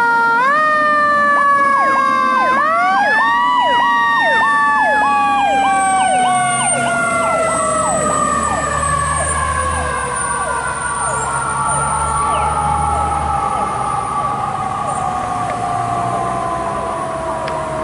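Fire apparatus sirens on a response: one siren wails up in the first few seconds, then falls slowly and steadily in pitch, while a second siren repeats a quick yelp over it through the middle. A truck engine is heard low underneath near the middle.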